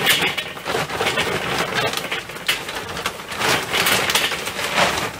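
Weber charcoal briquettes poured from their bag into a metal charcoal ring on a kettle barbecue's charcoal grate: a dense clatter of many small knocks as the briquettes tumble onto each other and the metal.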